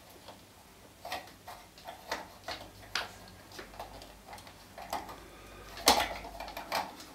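A 6-watt LED bulb being screwed into a clip-on lamp's socket by hand: scattered small clicks and scrapes, with a louder click about six seconds in.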